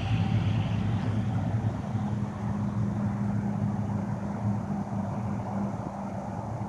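Pilatus PC-12 NG's single Pratt & Whitney PT6A turboprop engine and propeller running as the aircraft climbs away. It makes a steady low drone with a hum from the propeller and fades slightly toward the end.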